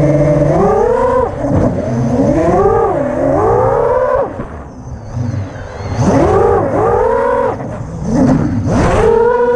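Brushless motors and propellers of a 6-inch FPV racing quadcopter whining in flight, the pitch surging up and falling back again and again as the throttle is punched and released. Around the middle the whine drops away almost to nothing, then surges back.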